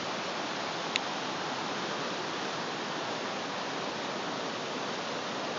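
A river rushing steadily: an even hiss of flowing water.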